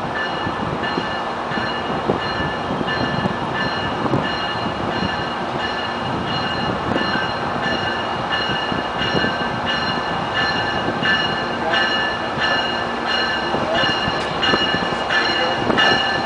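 Warning bell of an arriving Metrolink commuter train ringing in steady repeated strokes over the rumble of the train, growing louder as the cab car comes into the station.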